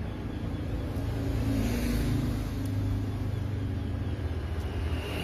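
Low, steady rumble of a motor vehicle's engine, growing a little louder over the first two seconds.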